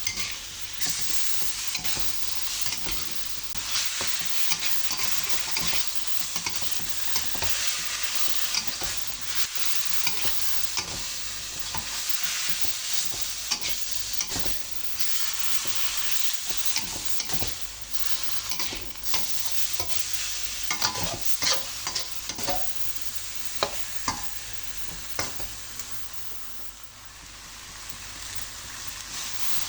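Food sizzling while being stir-fried in a hot pan, with a spatula scraping and knocking against the pan at irregular moments.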